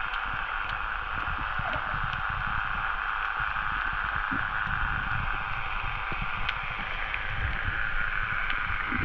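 Underwater sound picked up by a camera in its waterproof housing: a steady muffled hiss of water over a low, uneven rumble, with scattered faint clicks.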